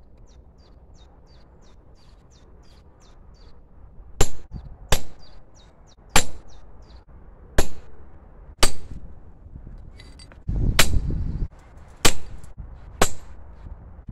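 Hammer blows on a hand-held steel stamp, punching maker's marks into a forged flint striker on the anvil. About eight sharp metallic strikes with a short ring, irregularly spaced, begin about four seconds in, with a brief low rumble between them.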